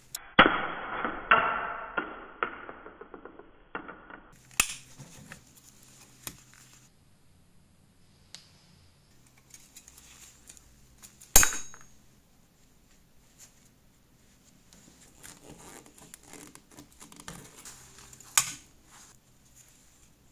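Rusty pressed-steel parts of a 1960s Tonka toy Jeep handled and worked apart by gloved hands: metal scraping and rattling for the first few seconds, then scattered clicks, one sharp ringing metal clink about eleven seconds in, and another click near the end.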